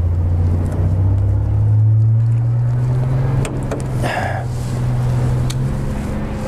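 A steady low machine hum, stepping up in pitch about two seconds in. A short rush of noise comes about four seconds in.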